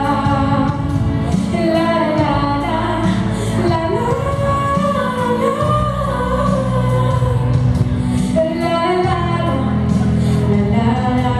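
A girl singing a melody into a handheld microphone, amplified over the hall's loudspeakers, over backing music with a steady beat and bass.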